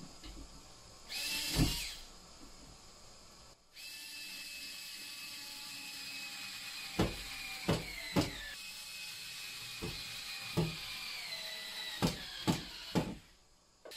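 Cordless drill-driver working into the plasterboard ceiling: a short burst about a second in, then a long continuous run whose pitch steps down as it slows under load. Several sharp clicks sound during the run, which stops shortly before the end.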